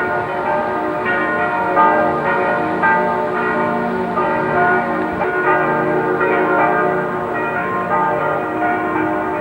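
Bells ringing in a continuous peal, many strikes overlapping and ringing on.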